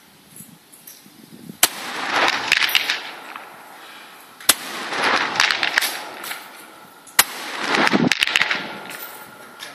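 Three shots from 300 m target rifles, roughly two and a half seconds apart, each followed by a long rolling echo that lasts about a second.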